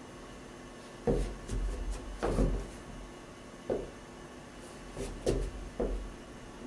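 A series of about seven dull knocks and thumps, irregularly spaced, some in quick pairs; the loudest come about a second in and about two seconds in.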